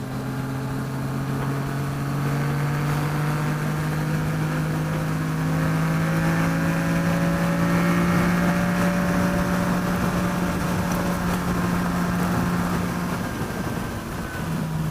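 Yamaha FZ-09's three-cylinder engine, fitted with an M4 exhaust, running under steady throttle while riding, with wind rush. Its note rises slowly as the bike gathers speed, then drops about 13 seconds in as the throttle is eased or it shifts up.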